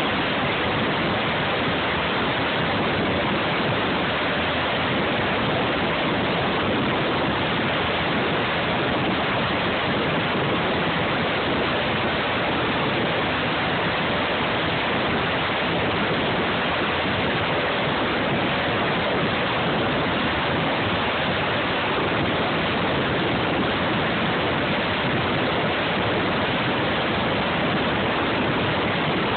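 Sikorsky S-92 helicopter running on the deck, its twin turboshaft engines and turning rotors heard as a steady, even rush of noise that does not change.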